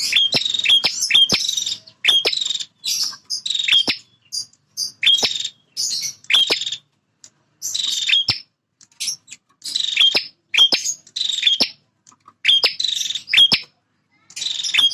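Male prinia (prenjak) singing its loud territorial song: short phrases of harsh, buzzy chirps with sharp downward-sweeping notes, repeated about once a second with brief pauses between.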